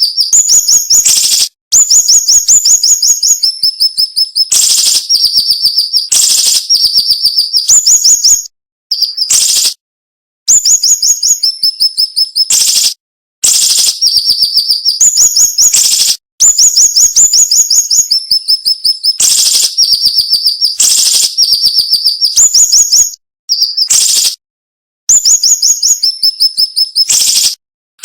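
Siri-siri bird singing in repeated phrases of rapid, sharp, piercing notes. Within each phrase, quick runs at a higher pitch alternate with runs at a lower pitch. Brief silent gaps separate the phrases.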